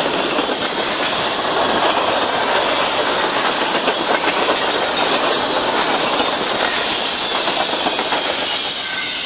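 Covered hopper cars of a freight train rolling past close by: steel wheels clattering over the rail joints in a loud, steady rush.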